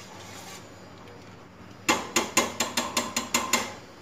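Steel spoon clinking and knocking against the side and rim of a stainless steel pot of rice gruel, about ten quick metallic knocks starting about two seconds in, as salt is stirred in.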